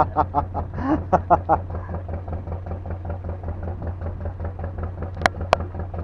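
Fishing boat's engine idling with a steady low, pulsing hum. A few short voice sounds come in the first second and a half, and two sharp knocks land about a quarter second apart near the end.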